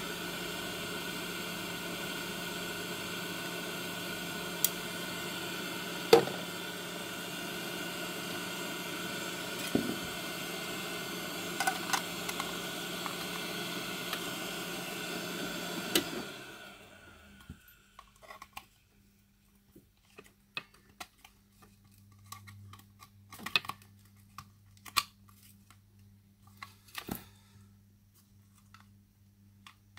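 Hot air rework station's blower fan whirring steadily with a hum, then running down and stopping about 16 seconds in. After that come light scattered plastic clicks and taps as the smart plug's casing is handled and fitted together.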